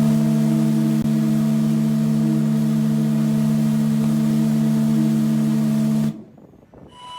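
SS Normandie's three-bell chime steam whistle blowing one long, steady blast: a deep chord of several notes over a hiss of steam. It cuts off about six seconds in.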